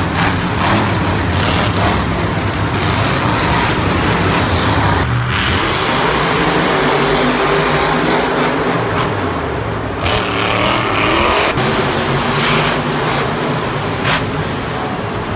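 Monster trucks' supercharged V8 engines running hard and revving across a dirt arena, loud and continuous, the pitch rising and falling as the trucks accelerate and let off.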